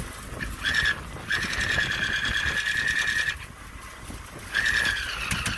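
A high, steady squeal, held about two seconds at a time and heard twice, over a constant rush of wind and water.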